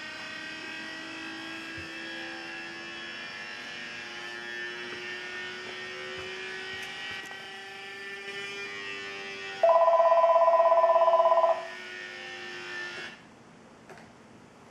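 Electronic audio tones driving a homemade laser galvanometer: several steady tones sound together while a low tone slowly rises in pitch. A much louder two-note tone comes in a little under ten seconds in and lasts about two seconds. All of it stops suddenly about thirteen seconds in.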